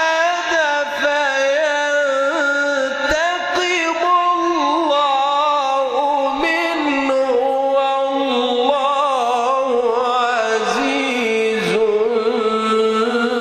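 A man's solo voice chanting Quran recitation in the melodic tajweed style, holding long ornamented notes that waver and step slowly downward in pitch, rising again near the end.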